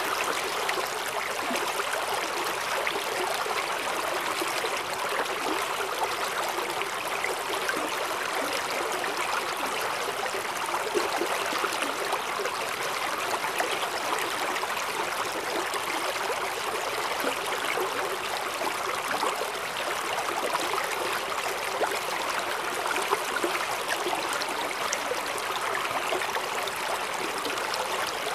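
Mountain stream rushing and splashing over rocks in a steady, even flow.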